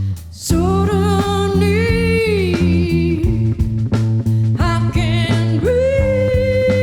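Live band music: a sung melody line over a steady plucked bass and guitar pattern, settling into a long held note near the end.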